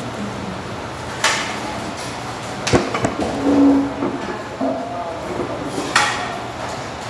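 Steady background hum of a fast-food restaurant, with three sharp knocks or clatters: about a second in, near the middle and near the end.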